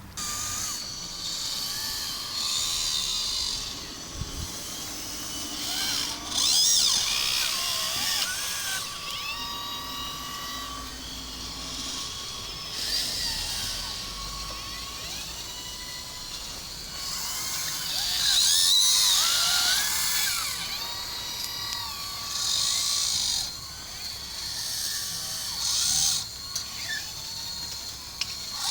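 Small electric motors and gearing of remote-controlled model construction machines whining as they work, the pitch rising and falling with each movement and swelling louder several times.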